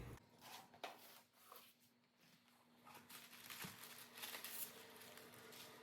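Faint rustling and light clicks of packaging being handled, busier in the second half.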